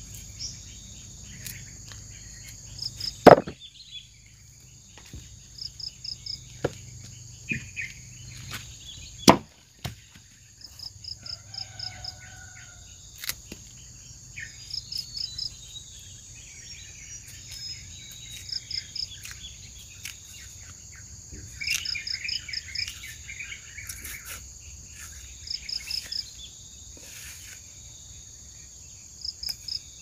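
Forest insects: a steady high drone with short trains of rapid chirps repeating every few seconds. Two sharp knocks come about three and nine seconds in, with small scattered clicks between.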